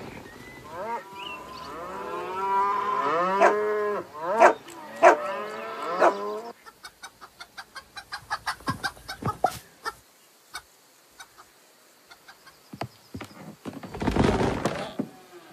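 Cartoon farm-animal calls: overlapping, wavering moos from the cows, then about six and a half seconds in a fast run of short chicken clucks that dies away. A brief noisy burst comes near the end.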